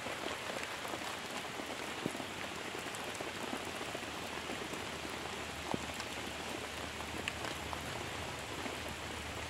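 Steady rain falling on a reservoir's water surface and stony shore, a continuous even hiss with a few separate drop ticks close by.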